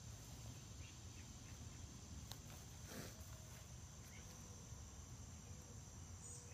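Near silence outdoors: a faint, steady high-pitched insect drone over a low rumble, with a couple of soft clicks about two and three seconds in.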